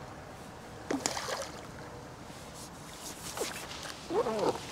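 Water splashing as a small carp is played to the bank and landed, with a sharp splash about a second in. Near the end come two short calls that rise and fall in pitch.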